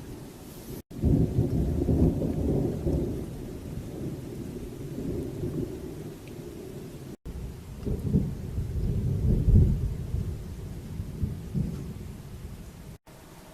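Thunder rumbling during a strong thunderstorm: one long low rolling peal starting about a second in and a second around seven seconds in, over a faint hiss of rain.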